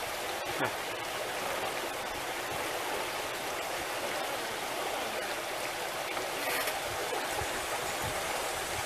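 Steady rush and hiss of water running along the hulls of a solar electric catamaran under way, with no engine sound.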